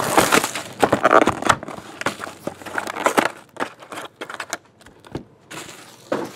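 Cellophane shrink wrap crinkling and tearing as it is peeled off a cardboard trading-card box. The crinkling is densest in the first three seconds, then thins to scattered rustles and taps.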